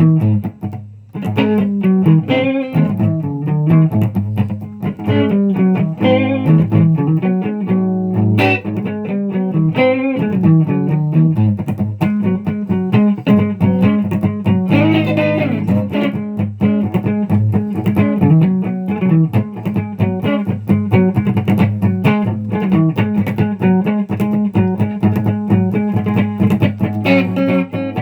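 Instrumental guitar music: quickly plucked electric guitar notes over a steady bass line.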